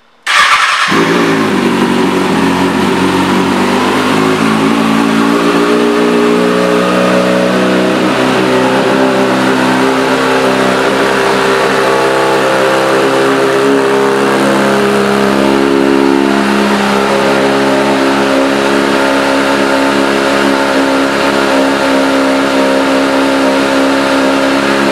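2009 Kawasaki Ninja ZX-6R's 599 cc inline-four, breathing through an aftermarket M4 exhaust, firing up suddenly just after the start and then idling steadily and loudly.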